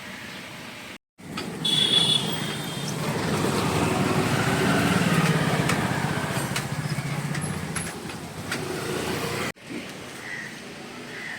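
A motor vehicle's engine running close by, swelling to its loudest about halfway and easing off, with a brief high squeal about two seconds in. The sound drops abruptly to silence for a moment about a second in and again near the end.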